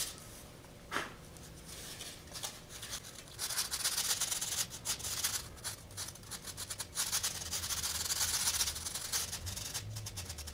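A small piece of sandpaper rubbed by hand along the edge of a foam mold, a scratchy rasp of many quick short strokes that breaks (rounds) the edge; it is faint at first and strongest in the middle stretch. A light knock about a second in.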